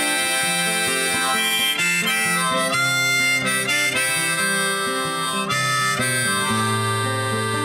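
Background music: a harmonica playing a melody of held notes over guitar accompaniment, an instrumental passage of a song.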